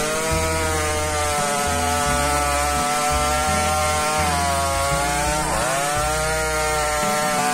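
Two-stroke chainsaw running at high, steady revs while cutting a log, its pitch dipping briefly and picking up again about five and a half seconds in.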